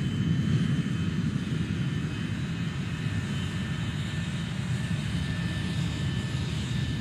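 Steady aircraft engine drone: a low rumble with a thin, steady high whine over it.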